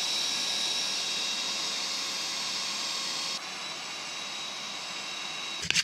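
Handheld belt sander clamped upside down in a wooden jig, running with a steady whine while a small wooden saw-handle blank is shaped against the belt. It drops a little in level about three and a half seconds in and cuts off shortly before the end.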